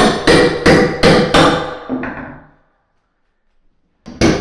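Hammer striking a steel pry bar driven into glued-down chipboard flooring, a fast run of ringing metal-on-metal blows about three a second. The blows stop about two seconds in, then resume near the end.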